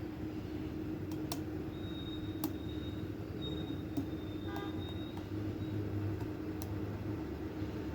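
Lock picking: a few faint, sharp metallic clicks and a thin high squeak of a hook pick scraping across the pins inside a lock, over a steady low background hum.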